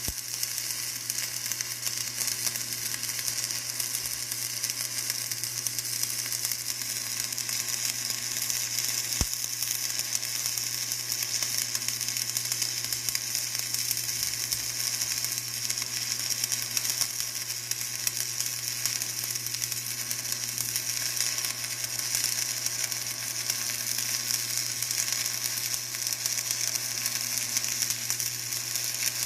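Electric arc welding on a steel city-gas pipe: the arc runs as a steady frying crackle and hiss with no break, over a low steady hum.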